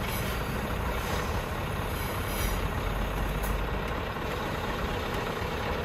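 Scania truck's diesel engine running steadily at low revs.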